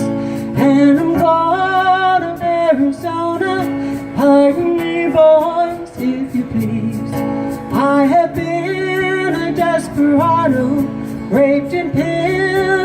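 A woman singing a slow country song over a strummed acoustic guitar.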